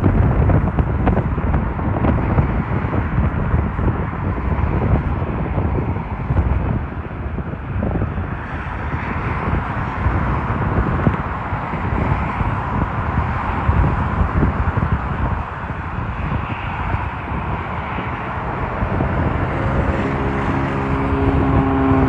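Jet airliner on low landing approach, a steady rumbling roar with wind buffeting the microphone. Near the end a steady hum of several tones comes in.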